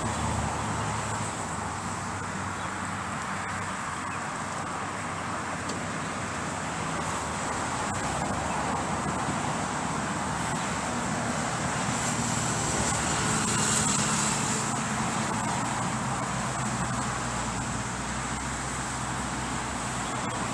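Steady hum of road traffic, with a high hiss that swells briefly about two-thirds of the way through.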